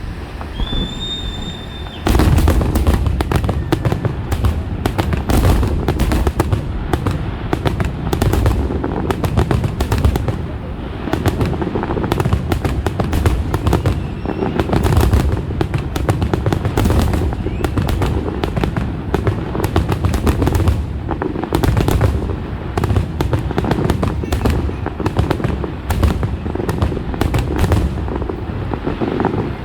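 Fireworks grand finale: after a brief whistle, a dense, rapid barrage of shell bursts and deep booms breaks out about two seconds in and keeps going without a pause.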